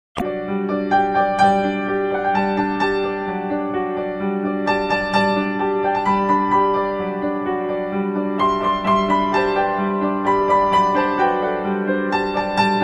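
Background keyboard music, piano-like, with sustained low notes under a melody of repeated note onsets.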